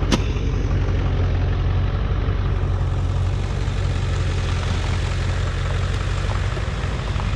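Truck engine idling, a steady low drone. A single sharp click comes right at the start.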